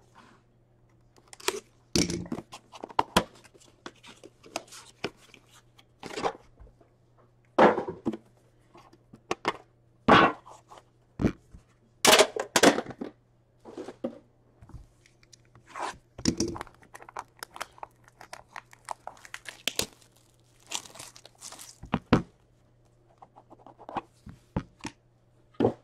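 Plastic shrink-wrap being torn and crinkled off a hockey card box, in a string of irregular crackles and rustles with handling knocks, over a faint low hum.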